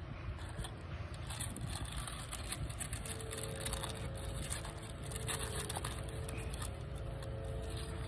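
Tissue paper and a cloth dust bag rustling and scraping as they are handled, over a steady low rumble. A faint steady hum comes in about three seconds in.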